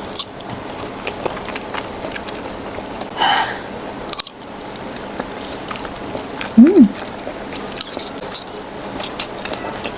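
Close-up eating sounds of seblak: wet chewing and biting with many small clicks and smacks. There is a brief high pitched sound about three seconds in, and a short rising-then-falling tone about two-thirds through, which is the loudest moment.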